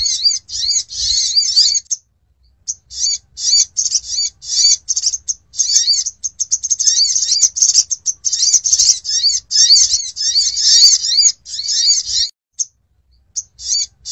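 Olive-backed sunbird (sogok ontong) calling: rapid runs of high, sharp chirps in quick bursts, with a short pause about two seconds in and another near the end. A bird-trapping lure call.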